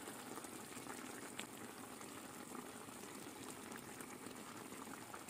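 Vegetable and tomato sauce simmering in a cast-iron frying pan: a faint, steady bubbling with a fine crackle.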